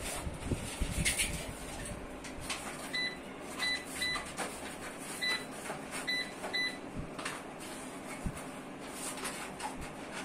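Split air conditioner's indoor unit, with a universal replacement control board, beeping to acknowledge remote-control button presses as the temperature setting is lowered: six short, high beeps over about four seconds. Under them is a steady hiss with scattered clicks.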